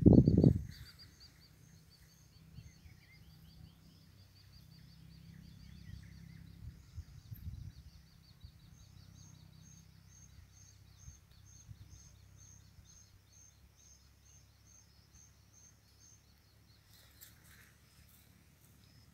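Outdoor ambience: high, rapidly repeated chirping calls from small animals in the surrounding vegetation, one series ticking at about two a second, over a faint low rumble. A brief loud low rumble at the very start.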